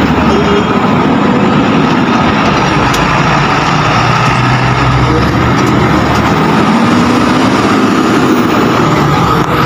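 Heavy diesel engines running close by: a Hino container truck moving off from under a container held up by a SANY reach stacker, whose engine also runs. The engine notes rise and fall.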